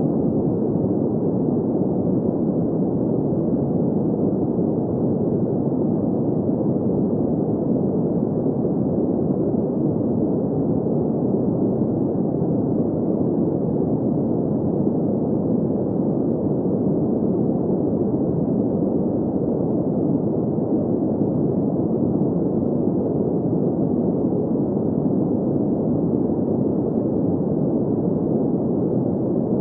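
Steady, muffled synthetic sleep noise like green noise: an even hiss weighted to the low and middle range with nothing above it, no tones and no changes.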